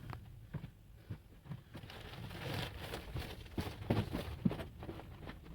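Faint rustling and a scatter of light knocks and clicks as clutter is handled and moved about, with a cluster of knocks a little after the middle.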